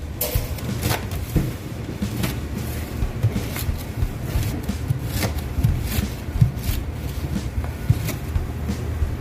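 A rolling pizza cutter slicing a pizza in its cardboard box: irregular sharp crunches and taps as the wheel goes through the crust against the box, over a steady low hum.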